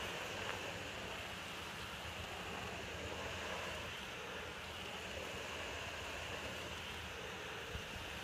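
Steady hiss of water spraying from a hose onto an artificial grass mat and pattering on it.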